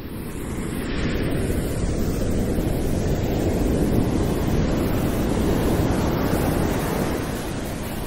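Ocean surf rushing: a wave swells up about half a second in, is at its fullest midway and eases off a little near the end.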